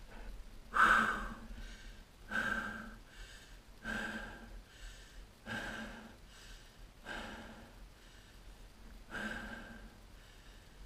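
Heavy, out-of-breath breathing of a rider winded from exertion, one breath about every one and a half seconds. The loudest comes about a second in, and the breaths ease off toward the end.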